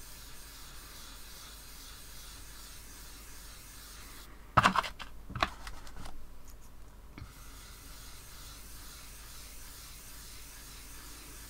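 Faint rubbing of an ink blending brush swirled over card. A little under halfway through come two sharp taps about a second apart and some brief rustling as the brush is pressed into a Distress Oxide ink pad to reload it.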